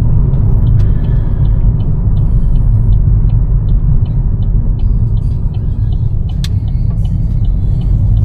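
Steady low rumble of a moving vehicle, with light clicks or rattles about twice a second.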